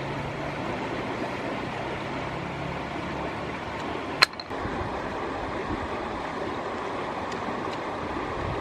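Steady rush of a flowing river. About four seconds in there is one sharp click.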